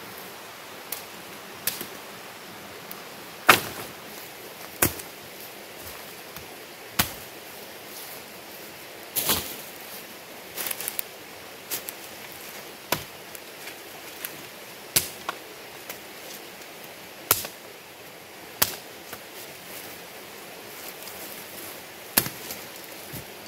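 Machete chopping into a wooden branch: sharp single strikes, unevenly spaced about one to two seconds apart.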